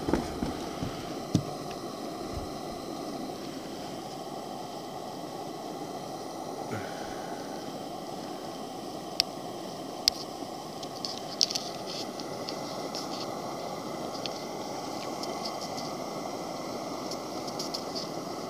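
Steady background noise, even and without a pitch, with a handful of short sharp clicks, most of them near the middle.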